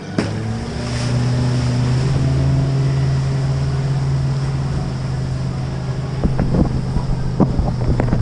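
FPV racing quadcopter's brushless motors running with a steady buzzing hum, heard through wind buffeting on the onboard action camera's microphone. There are a few sharp clicks near the end.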